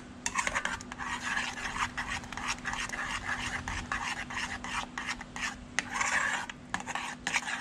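Metal spoon stirring and scraping thick mashed potato in a small saucepan: an irregular run of rough scrapes and light clicks against the pot.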